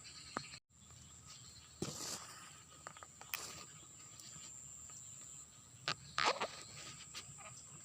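Insects chirring steadily at a high pitch, with several short rustles and knocks in between, the loudest about six seconds in.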